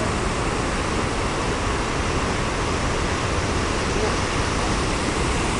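Water pouring through a dam's open spillway gates and churning below, a steady heavy rush.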